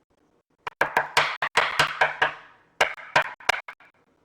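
Quick, irregular run of sharp clicks and knocks, starting about a second in and going on for about three seconds: trading cards and plastic card holders being handled and set down on a table.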